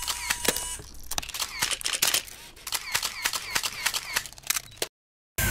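Camera shutter clicks in quick, irregular succession, several a second, stopping abruptly about half a second before the end.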